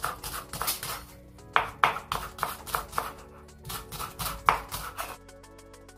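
A kitchen knife chopping leek on a wooden cutting board: quick strikes, about three a second in short runs, which stop about five seconds in. Background music plays throughout and carries on alone after the chopping stops.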